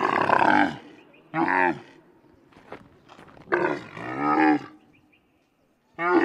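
A camel lying down and calling several times in rough, gliding calls: one that trails off early, a short call about a second and a half in, a longer call around four seconds, and another starting near the end.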